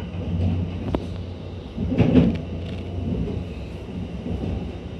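Kintetsu Ise-Shima Liner electric express train heard from inside the driver's cab while under way: a steady low rumble, with a sharp click about a second in and a louder clatter around two seconds in.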